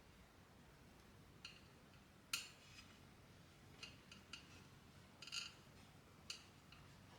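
Faint, scattered clicks and clinks of kitchen utensils and dishes, about seven in all, each with a slight ring. The loudest comes about two and a half seconds in, and a small cluster about five and a half seconds in.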